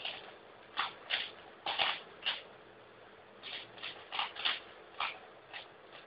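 Plastic Rubik's cube being turned fast in a timed solve: quick clacking of the layers in irregular bursts, with a pause of about a second near the middle.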